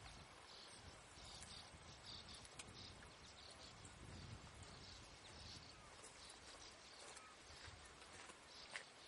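Near silence: faint outdoor ambience with insects calling in short buzzes repeated about twice a second, over a low rumble.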